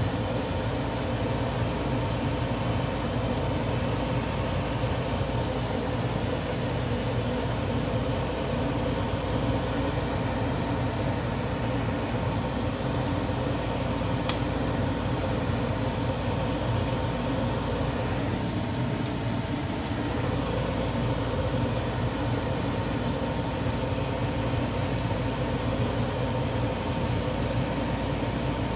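A steady mechanical hum with a few fixed tones, dipping briefly about two-thirds of the way through, over the faint sizzle and occasional light pops of plantain pieces frying in oil.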